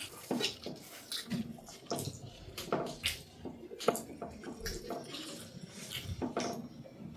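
Wet eating sounds: irregular clicks and smacks of mouths chewing dhido, a thick millet porridge.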